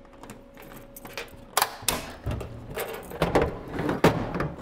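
Key turned in a metal toolbox's cylinder lock with clicks and rattles, then the drawers being pulled open, with several sharp metal clanks, the loudest about one and a half, three and a quarter and four seconds in.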